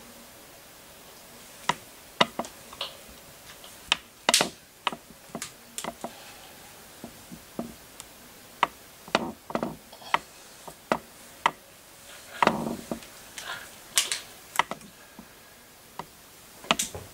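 Irregular sharp clicks and light knocks in a small room, many in quick succession. A few have a short scraping tail, about halfway through and near the end.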